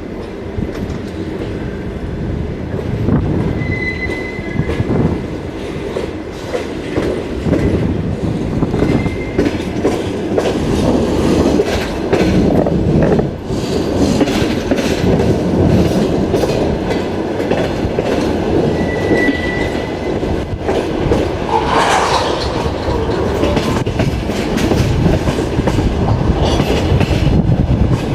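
Passenger railway carriage running along the track, heard from its window: steady rumble of the wheels with clickety-clack over rail joints, a few brief thin squeals, and a short louder screech about two-thirds of the way through.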